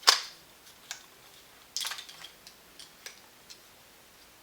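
Plastic and metal parts of a tripod clicking and rattling as it is handled and its locks are worked: one sharp loud click at the start, a short clatter about two seconds in, and a few faint ticks between.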